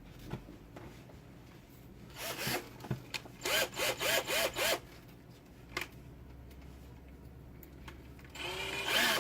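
Power drill's motor given short bursts on the trigger: about five quick spin-ups and run-downs, then a longer run rising in pitch near the end.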